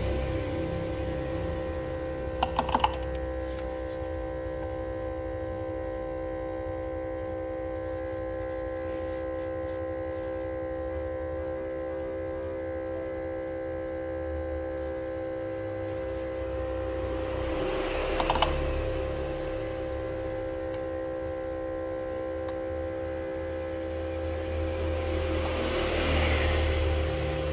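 A steady machine hum with tissue rubbing and tapping on LCD glass while glue residue is wiped off. A quick run of four clicks comes a couple of seconds in, and a swell of rumble and hiss comes near the end.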